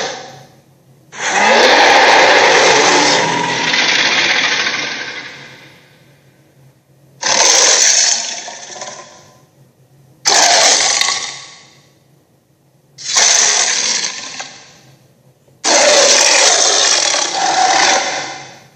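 A string of five harsh, rasping dragon roar sound effects, one after another with short gaps: the first lasts about five seconds, the rest two to three seconds each.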